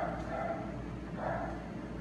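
Dog whining briefly twice, about a second apart.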